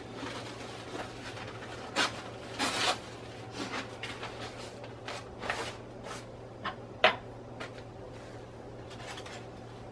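Aluminium foil rustling and crinkling in short bursts as it is handled, with a few knocks; the sharpest is a click about seven seconds in.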